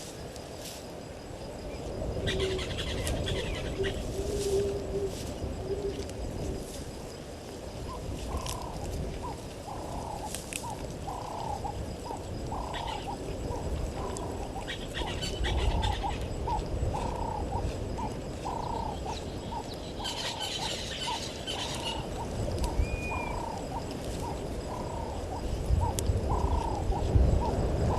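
Wild animal sounds at a waterhole: bird chirping comes in short bursts, and from about eight seconds in a short arching call repeats roughly once a second. A low rumble runs underneath.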